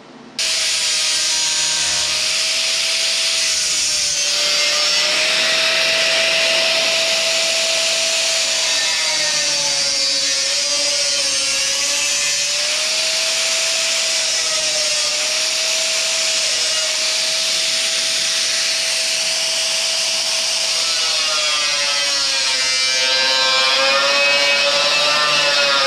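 Bosch angle grinder running against steel, grinding down a welded-in patch on a car body panel. Its motor whine sags and recovers in pitch over and over as it is pressed into the metal, under a steady gritty hiss. It starts suddenly just after the beginning.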